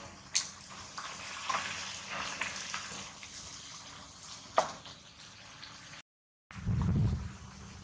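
Dry leaf rustling and crinkling as a baby macaque handles it, with a few sharp clicks and one short squeak about four and a half seconds in. The sound drops out for a moment around six seconds in, then a low rumble follows.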